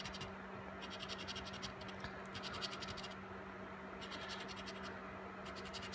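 A coin scraping the coating off a scratch-off lottery ticket, quietly, in several short runs of quick strokes.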